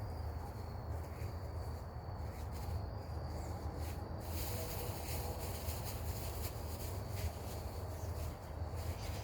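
Outdoor garden ambience: a steady high insect drone over a constant low rumble on the microphone, with brighter rustling and a few small clicks from about four seconds in.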